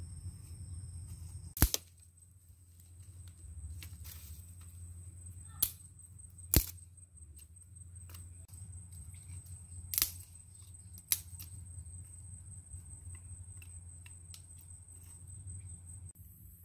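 Dry sticks snapping as they are broken by hand to build a small cooking fire between hearth stones: five sharp snaps, with lighter cracks and crackles of twigs being laid in between.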